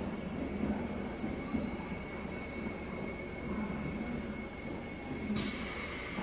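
JR West 201 series electric train heard from inside a motor car while running: a steady rumble with a thin steady whine. About five seconds in, a high-pitched shrill sound starts suddenly, typical of wheel or flange squeal.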